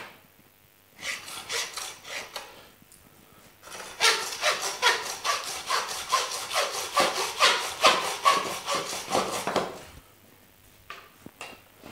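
Butcher's hand bone saw cutting across the rib bones of a rack of ram. A few slow marking strokes come first, then a fast run of about six strokes a second that stops about ten seconds in as the saw comes through the bone.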